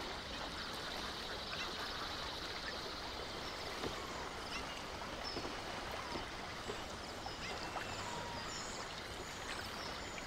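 Riverside nature ambience: a steady hiss of running water with scattered bird chirps and calls, including a quick trill near the start.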